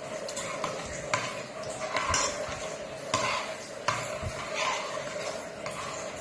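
Metal spoon stirring rice porridge in a stainless steel pot, with repeated scrapes and knocks against the pot, over a steady hum.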